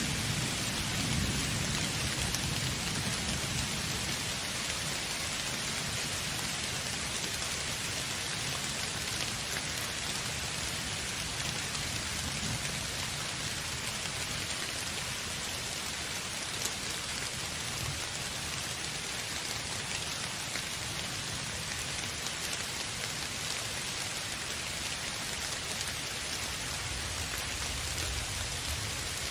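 Steady rain falling on a surface, an even hiss throughout, with a low rumble fading away over the first few seconds.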